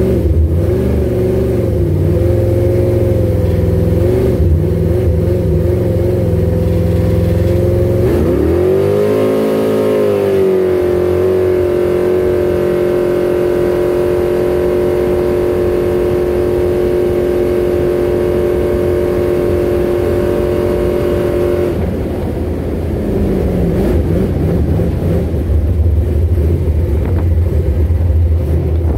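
Drag boat's engine under way: it climbs steeply in pitch about eight seconds in, holds one steady high note for some twelve seconds, then falls off about twenty-two seconds in as the throttle comes back, leaving a lower rumble.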